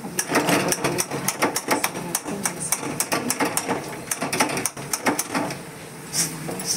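Steel spatula scraping and clinking rapidly against an iron kadhai while stirring and roasting a dry, crumbly sweet mixture. The clatter dies down about five and a half seconds in.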